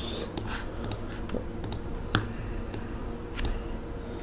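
Computer keyboard and mouse clicking: about half a dozen short, irregular clicks, the sharpest about two seconds in, over a faint steady hum.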